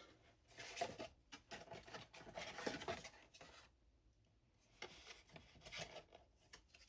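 Blind-box packaging being handled: faint, irregular rubbing and rustling of card and paper, in two spells with a short pause between.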